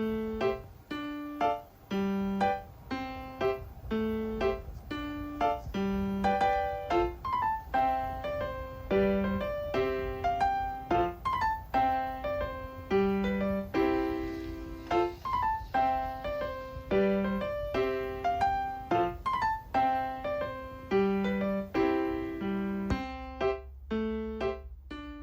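Background piano music: a steady melody of separately struck notes over a faint low hum.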